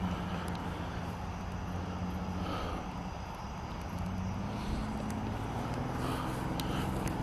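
Steady low drone of a distant engine, with a few faint clicks near the end.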